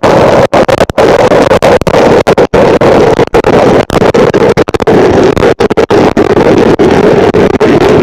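Loud, distorted digital glitch sound effect: harsh buzzing static cut by many brief dropouts, its strongest band sitting around a low-middle pitch that sinks slightly toward the end.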